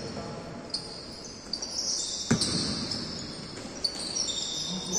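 Basketball sneakers squeaking on a hard indoor court during play, with one ball bounce thudding about two seconds in, in the echo of a large gym.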